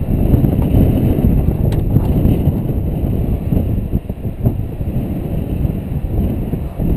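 Heavy wind buffeting the microphone of a GoPro Hero 2 mounted on the outside of a moving 2013 Jeep Wrangler JK, a loud, low, gusting rumble that drowns out everything else.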